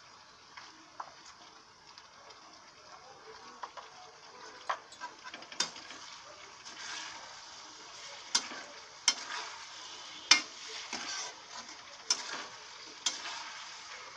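Mixed vegetables sizzling in a metal kadhai while a perforated metal spatula stirs them. Sharp clinks of the spatula against the pan come more often and louder from about five seconds in.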